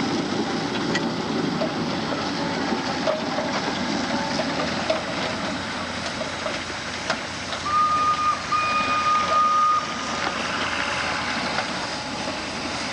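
A high whistle sounds twice about eight seconds in, a short toot then a longer one, over steady background noise.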